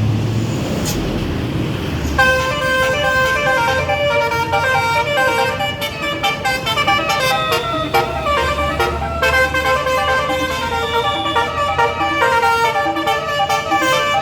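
Tour bus basuri musical horn playing a quick multi-note melody, starting about two seconds in and running on, over the rumble of the bus engine.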